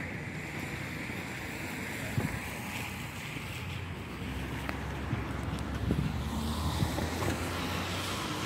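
Wind buffeting a phone's microphone: a steady rumbling hiss with a few faint knocks.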